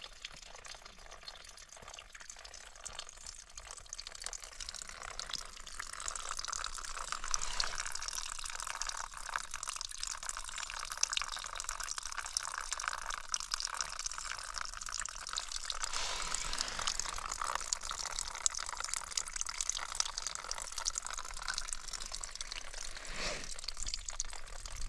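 Water running and trickling, getting louder about six seconds in.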